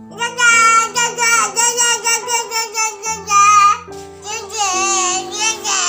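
A children's song playing: a child's singing voice in short phrases over a steady instrumental backing.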